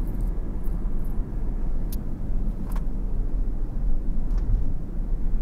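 Steady low rumble of a moving car heard from inside the cabin: road and engine noise while driving at an even speed, with a couple of faint clicks about two seconds in.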